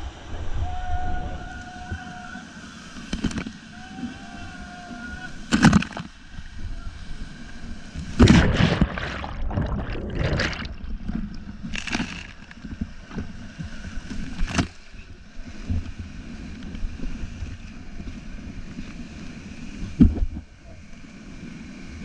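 Whitewater rapids rushing around an inflatable raft, with waves breaking over the boat and water crashing onto the camera in several loud surges, the biggest about eight to eleven seconds in.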